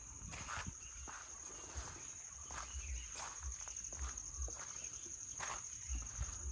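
A steady, high-pitched insect trill runs throughout, with footsteps on a garden path crunching about once or twice a second.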